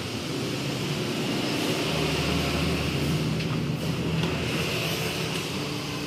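A steady mechanical rumble and hum, swelling deeper for about a second around two seconds in.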